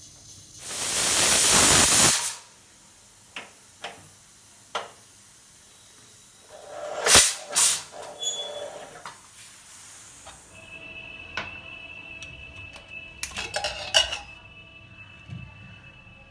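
Cookware handling: a loud hiss of steam lasting over a second near the start, a few light clicks, then two sharp metal knocks and clatter as a steel pressure cooker lid is fitted and locked, followed by metal clinks with a faint ringing.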